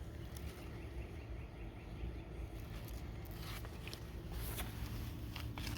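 Leaves and stems rustling and brushing, with footsteps, as someone pushes into an overgrown garden bed, over a low steady outdoor rumble. A faint, quick run of chirps comes about two seconds in.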